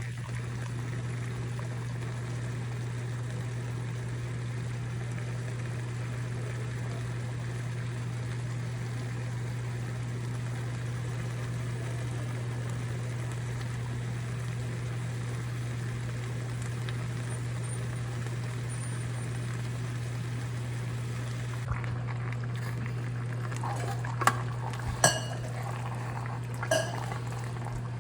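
Chicken simmering and bubbling in a pan over a steady low hum. A few sharp metal clinks of a utensil against the pan come near the end.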